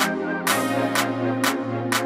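Electronic intro music with a steady beat, about two sharp drum hits a second over held synth chords.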